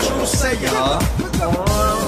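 Music with a steady beat, deep bass and a held melody, played from a TikTok video.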